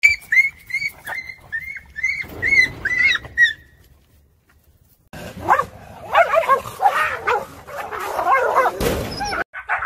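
Street dogs fighting. A dog yelps in quick, high, repeated cries, about three a second, for the first three and a half seconds. After a short lull several dogs bark and cry over one another in a dense scuffle, with a sharp loud burst near the end.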